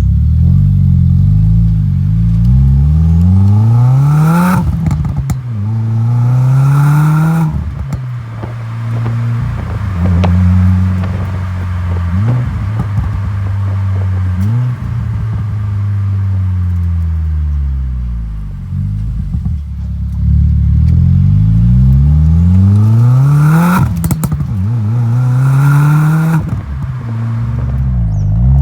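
2020 Subaru WRX's turbocharged 2.0-litre flat-four (FA20DIT, stock tune) through a Mishimoto cat-back exhaust, pulling hard under acceleration. It makes two pulls, each climbing in pitch and dropping sharply at an upshift. Between them is a stretch off the throttle where the exhaust pops and crackles.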